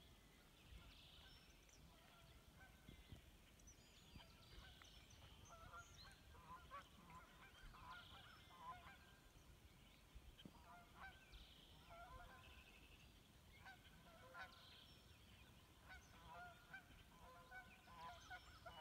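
A flock of geese honking faintly, many short calls overlapping, coming thicker from about a third of the way in.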